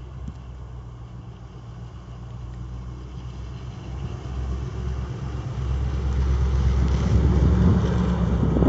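1999 Dodge Durango's 5.9-litre V8 running through a Flowmaster exhaust as the truck drives up on snow, its low rumble growing steadily louder until it passes close near the end.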